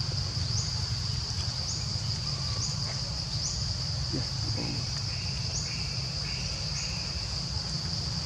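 Forest insects droning steadily at a high pitch, with short rising chirps repeating over it about once a second, over a low steady rumble.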